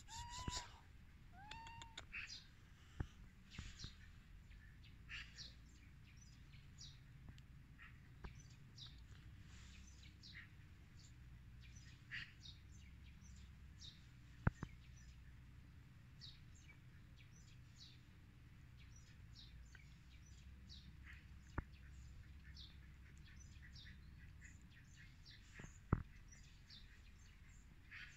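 Black cat meowing twice in the first couple of seconds, short curved calls asking for food held out to it. The rest is quiet, with faint high chirps throughout and three sharp clicks spread through the second half.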